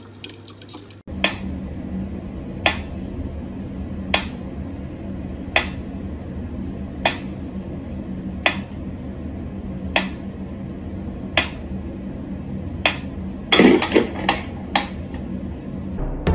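Mechanical pendulum metronome ticking slowly and evenly, about one tick every second and a half, over a low steady hum. Near the end there is a short cluster of louder knocks and rattles.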